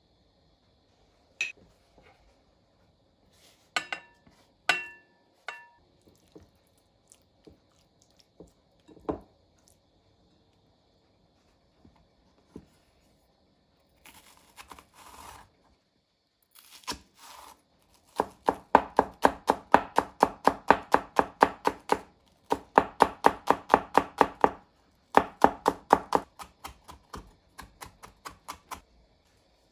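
Green onion being finely chopped with a square-bladed kitchen knife on a wooden cutting board: fast, even knife strokes at about five a second, in three runs broken by short pauses, starting a little past halfway. Before that, a few scattered light taps and knocks.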